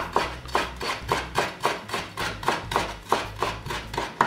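Santoku-style kitchen knife finely chopping dill on a wooden cutting board: quick, even knocks of the blade on the wood, about four a second.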